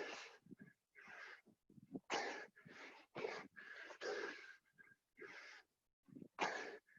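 People panting hard from the exertion of doing burpees: a quick, irregular string of loud breaths in and out, each about half a second long.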